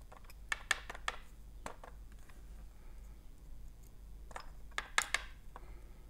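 Small, sharp metallic clicks and taps of steel tweezers and lock pins being handled over a plastic pin tray, a cluster of clicks about half a second in and another about five seconds in.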